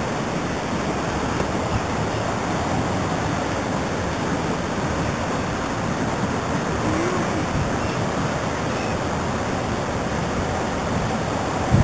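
Steady rushing wind noise on the microphone, without a break.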